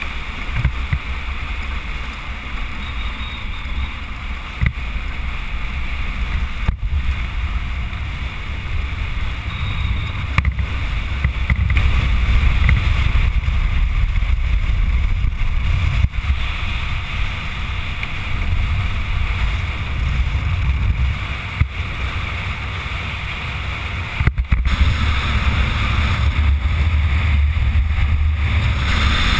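Steady wind rush and low rumble picked up by a camera mounted on a land yacht sailing fast across a dry lakebed, the rumble coming from its wheels rolling over the cracked crust and from the wind buffeting the microphone.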